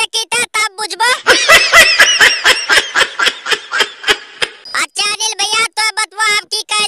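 High-pitched, sped-up cartoon voice laughing in a quick run of short bursts, with a few voiced syllables before and after.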